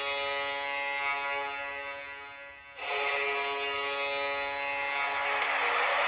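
NHL arena goal horn blasting, a long steady blast that tails off and then starts again about three seconds in. Crowd cheering swells behind it near the end.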